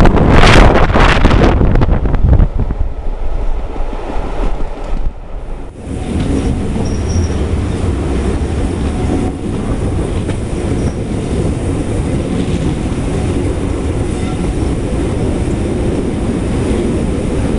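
Wind buffeting the microphone for the first couple of seconds, then the steady rumble of a steam-hauled train's coaches running on the rails, with a few faint, brief wheel squeals as the train takes a curve.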